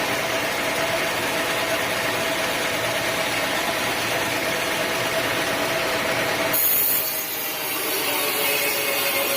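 Sawmill saw machinery running and sawing teak wood, a steady loud mechanical noise with a hum. About seven seconds in the sound changes abruptly to a higher hiss over a different hum.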